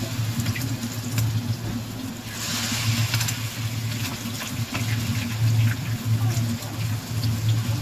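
Battered shrimp deep-frying in hot oil: a steady sizzle with scattered crackles, swelling louder about two and a half seconds in. A steady low hum runs underneath.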